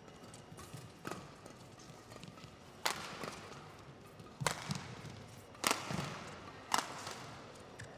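Shuttlecock struck back and forth by badminton rackets in a fast doubles rally: five sharp cracks, one every second or two, with duller thuds of players' feet on the court between them.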